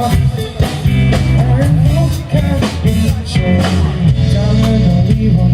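Live rock band playing between vocal lines: electric guitar, bass and drum kit.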